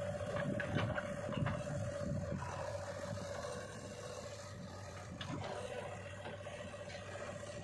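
Diesel engines of a JCB 3DX backhoe loader and a Mahindra tractor running steadily while the backhoe bucket tips soil into the tractor's trolley. The soil rattles and scrapes into the trolley in the first second or so and again about five seconds in.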